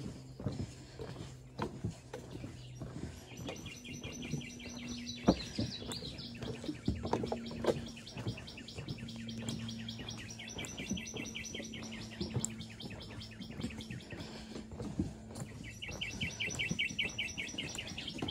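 A high, rapidly pulsing trill from a wild animal sounds in three long stretches of several seconds each. Scattered footsteps and a faint steady low hum lie beneath it.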